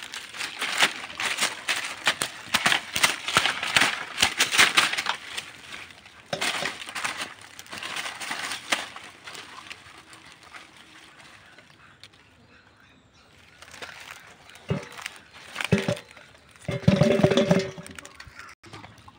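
Dry leaves crackling and rustling as a freshly caught fish is unhooked and handled on the ground. Near the end come a few knocks and a short ringing clank as the fish goes into a metal basin.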